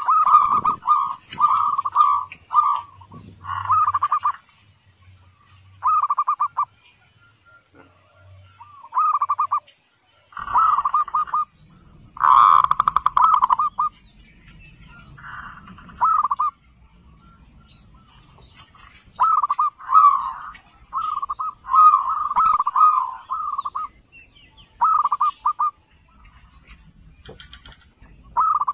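Zebra dove (perkutut) giving its grating 'kerot' call: short, rapidly pulsed cooing phrases repeated in runs and singly, with a longer, louder phrase about twelve seconds in.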